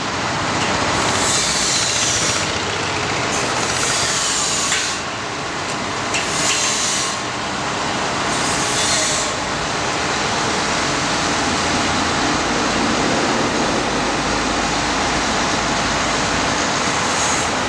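A crane runs steadily as it hoists a worker's cage basket, with several short bursts of hiss in the first half.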